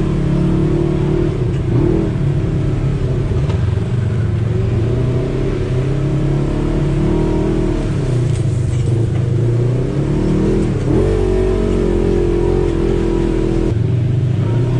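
Polaris RZR side-by-side's engine running under way, heard from inside the open cab, its pitch rising and falling a few times as the throttle is worked.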